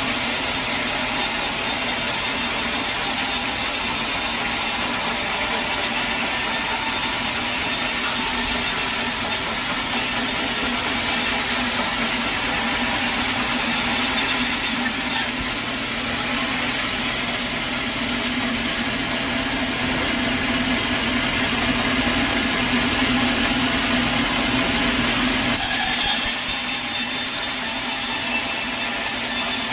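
Sawmill saw running steadily through a long log. About 25 seconds in the sound shifts, turning brighter and thinner.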